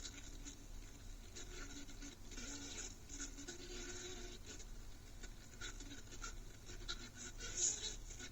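Faint, irregular scratching and rustling.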